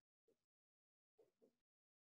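Near silence, with a few very faint short strokes of a dry-erase marker drawing on a whiteboard.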